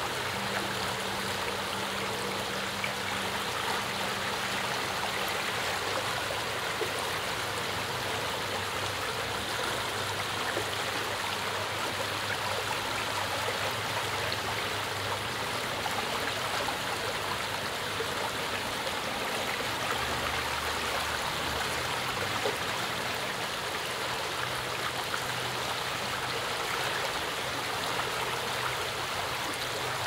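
Shallow stream running over a rocky bed: a steady, even rush of water.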